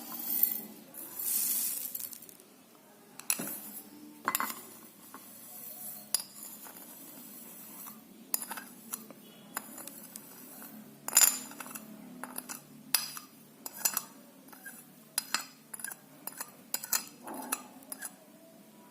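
A metal spoon clinking against a drinking glass as sugar is spooned in: a series of light, irregularly spaced clinks and taps, with a brief hiss near the start.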